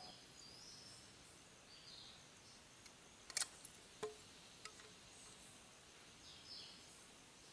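Near silence: faint forest ambience with a few brief high chirps near the start, about two seconds in and near the end, and a few soft clicks a little past the middle.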